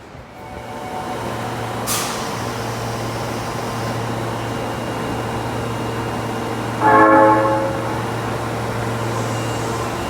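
Osaka Metro subway train running alongside the platform with a steady rumble and motor hum, a brief click about two seconds in. A short single horn blast sounds about seven seconds in.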